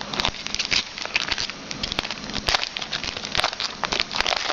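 Crackling and crinkling of a trading card pack's wrapper being handled and opened, in a quick irregular run of small rustles.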